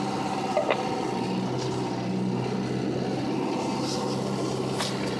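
Off-road vehicle's engine running steadily at low speed, heard from inside the cab while driving slowly over a grass track, with a couple of brief clicks from the cab.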